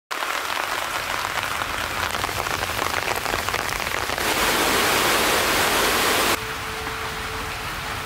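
Rain falling steadily, a close patter of drops. About four seconds in it turns abruptly to a denser, louder hiss, then about two seconds later drops back to a softer patter.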